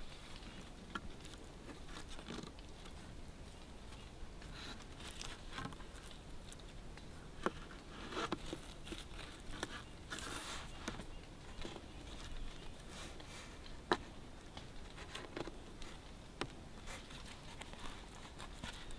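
Thin cord being wrapped and pulled around three small wooden poles for a tripod lashing: faint rubbing and scraping of cord on wood and hands, with a few short sharp clicks.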